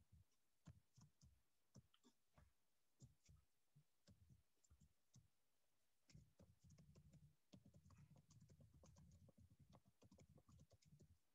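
Faint computer keyboard typing: a few scattered keystrokes at first, then a quicker, steadier run of typing in the second half.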